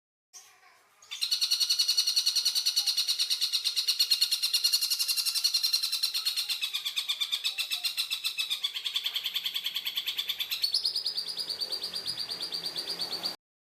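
Tengkek buto calling: a long, fast, harsh rattle of rapidly repeated notes that dips in pitch midway, jumps higher and rougher near the end, then cuts off abruptly.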